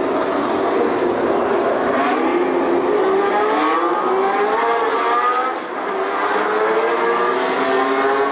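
Vintage Formula One cars' engines at speed, several at once, their notes repeatedly climbing in pitch as they accelerate, with a short dip in loudness a little past halfway.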